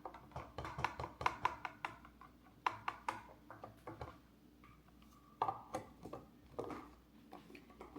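A spoon stirring a milkshake in a cup: a quick run of clinks and taps against the cup for the first few seconds, then a few scattered clinks and scrapes.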